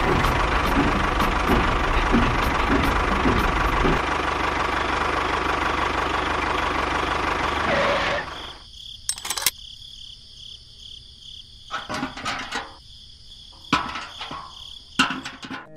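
A small motor running steadily, stopping about eight seconds in, then a few scattered clicks and knocks.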